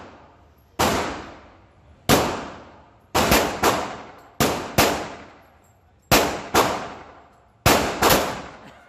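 A 9mm pistol firing about a dozen shots at an irregular pace, some in quick pairs and triples, each shot followed by a long, echoing decay.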